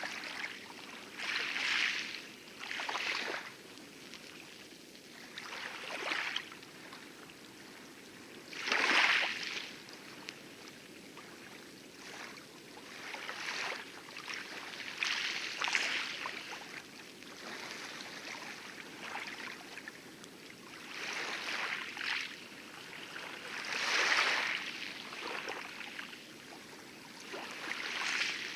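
Light waves lapping and splashing on coral in irregular splashes every one to four seconds, over a steady low wash of distant heavy surf.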